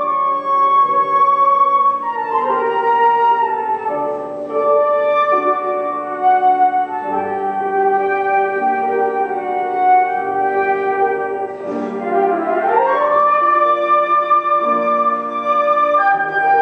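Two flutes and a grand piano playing together, the flutes holding long notes over the piano, with a quick rising run about three quarters of the way through.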